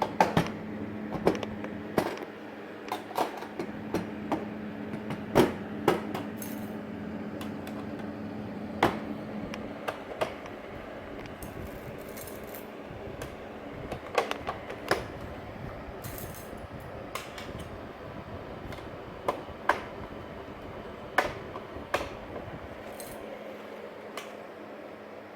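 Irregular sharp metallic clicks and clinks of hand tools and fasteners worked on the aluminium sheet-metal skin of a kit-plane flaperon. A low steady hum runs underneath and fades out about ten seconds in.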